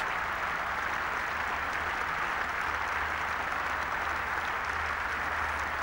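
Cricket crowd applauding steadily: a sustained wash of clapping for a batsman reaching his half-century.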